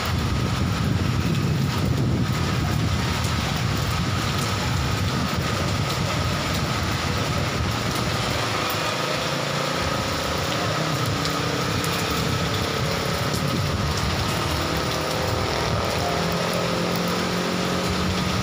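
Heavy rain falling steadily, with a low rumble of slow-moving traffic under it.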